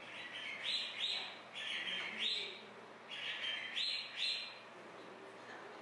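A series of short chirps: four in quick succession, a brief pause, then three more.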